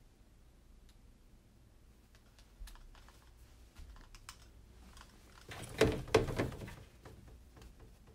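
Handling noise as a phone camera is brought up against a door with a hat and lanyards hanging on it: scattered light clicks and taps, then a louder cluster of knocks and rustling about six seconds in.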